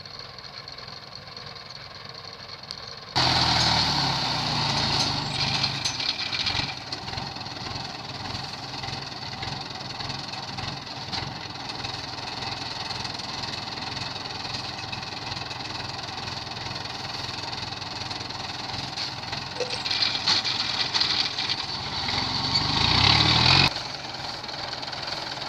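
Rice combine harvester engine running steadily. It comes in suddenly much louder about three seconds in, swells again near the end, then drops off abruptly.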